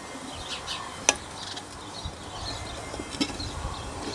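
An L-shaped 10 mm socket wrench unscrewing the bolts of a walk-behind tractor's gearbox side cover, making a few light metal clicks, with a sharper one about a second in and another near three seconds.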